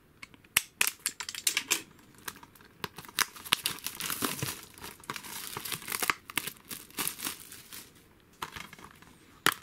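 Plastic shrink-wrap being torn and crinkled off a Blu-ray case: an irregular run of crackles and sharp snaps.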